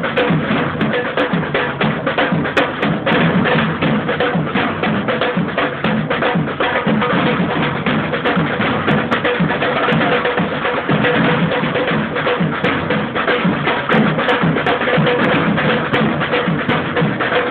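Samba drum band playing a fast, steady samba-reggae rhythm: deep bass drums struck under many quicker strokes on smaller drums.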